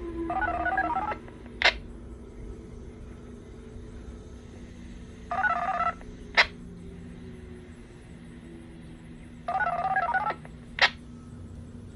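Three short sequences of touch-tone (DTMF) beeps, about four and a half seconds apart, each followed half a second later by a sharp, loud click. They sound like a remote activation code for the siren. Under the first one, the model tornado siren's tone winds down and fades, over a steady low hum.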